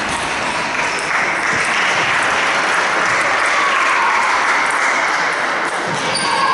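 Applause in a large sports hall, starting about a second in and easing near the end, with a few table tennis ball clicks.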